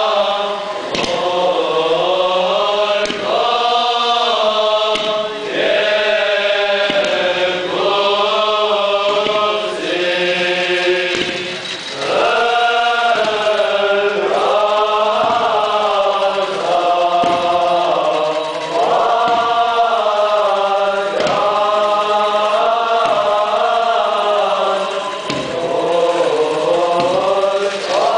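Armenian liturgical chant sung by a group of voices, in long held phrases that glide between notes, with short breaks between phrases.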